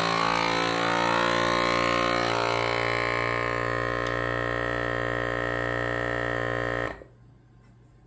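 FoodSaver vacuum sealer's pump motor running as it draws the air out of a bag of rifle cartridges, a steady hum whose pitch shifts over the first couple of seconds. It cuts off sharply about seven seconds in, once the bag is pulled tight.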